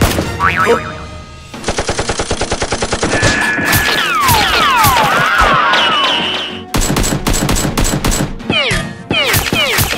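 Bursts of rapid automatic-gunfire sound effects: a long, fast, even burst about a second and a half in, and more shots in the second half. Music with sweeping, falling tones plays in the middle.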